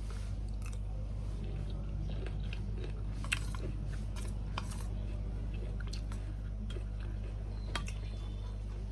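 A person chewing spoonfuls of boiled corn kernels mixed with lemon, salt and chilli, with a few sharp clicks scattered through, over a steady low hum.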